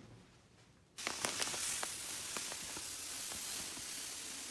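Crushed walnut shell tumbling media pouring from a bag into the plastic bowl of a vibratory tumbler: a steady hiss of streaming grains with small ticks, starting about a second in.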